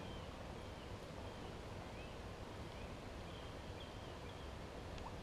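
Quiet marsh ambience: a steady faint hiss with a few faint, short bird chirps scattered through it.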